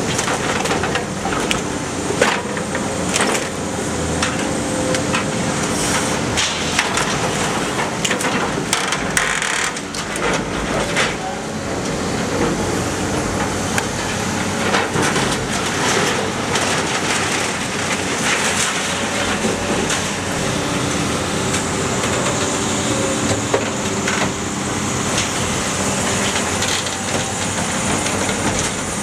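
Iron Pack car baler in operation: a steady machine drone under scattered metal knocks and crunches as scrap is crushed.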